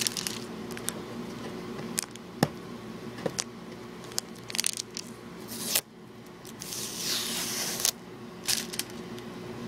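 Plastic DVD case and its packaging being worked at by hand to get it open: scattered sharp clicks and scrapes, with a longer rustling noise about seven seconds in.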